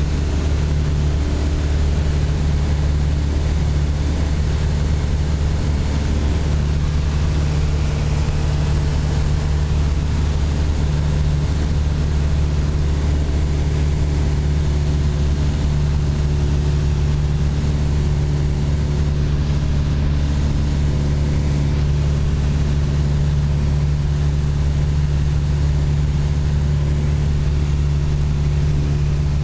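Light aircraft's engine and propeller droning at a steady, unchanging pitch in flight, heard from inside the cockpit.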